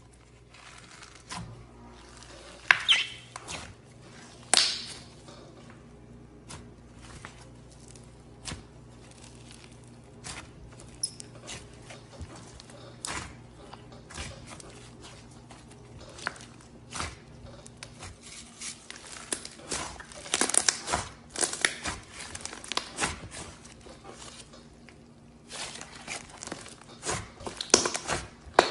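Slime being squeezed, stretched and poked by hand: irregular sticky clicks, pops and crinkly crackles, thickest in clusters in the second half.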